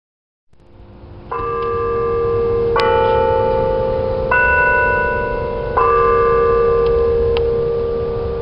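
Church bells ringing: bells of different pitch are struck in turn about every second and a half, and each keeps ringing into the next. Four strokes, the first about a second in.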